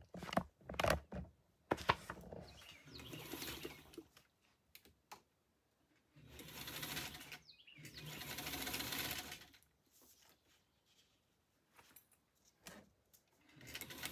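Electric sewing machine stitching sheets of paper together in short runs that stop and start, with a few sharp clicks of handling near the start.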